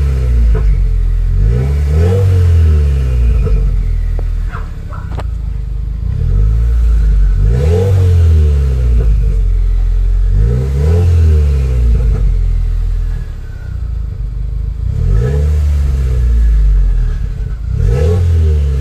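2015 Subaru WRX's turbocharged FA20 flat-four, fitted with an aftermarket J-pipe, being free-revved while parked. Each blip rises and falls back, about every three seconds, heard at the quad tailpipes.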